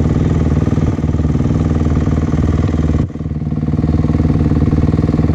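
A vehicle engine running steadily at an even speed, with a brief dip in level about three seconds in before it picks back up.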